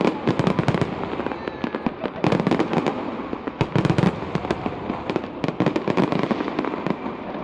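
Fireworks display going off in a dense, continuous barrage of bangs and crackling, with heavier clusters of reports about two and four seconds in.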